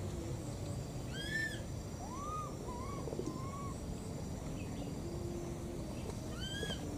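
A baby monkey's high, arched call, clear and ringing with overtones, about a second in and again near the end. Between the two calls come three lower hooting notes in quick succession.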